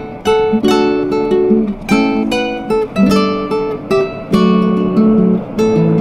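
Background music on acoustic guitar: plucked notes in a steady rhythm, often several sounding together as chords.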